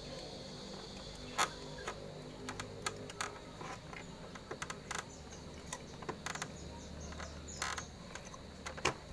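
Scattered light clicks and taps of tools and metal parts being handled while a motorcycle carburetor is refitted to its intake manifold.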